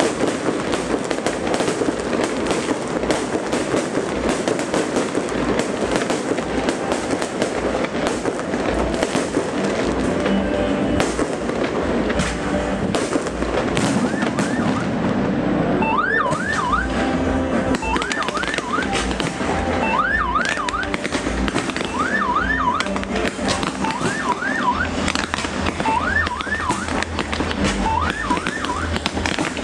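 Aerial fireworks going off in a dense, continuous barrage of bangs and crackles. From about halfway through, a siren joins in, wailing in short rising sweeps that repeat every second or two.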